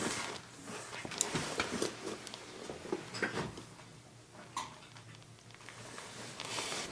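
Faint, scattered clicks and rustling of hand tools being handled and moved on a concrete floor.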